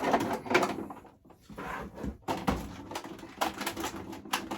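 Packaging rustling and scraping in irregular bursts as a boxed action figure is pulled at in its tight-fitting box.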